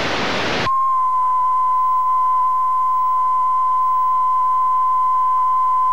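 A short burst of analogue TV static hiss, which cuts off under a second in to a steady, unbroken test-tone beep, the reference tone that goes with television colour bars.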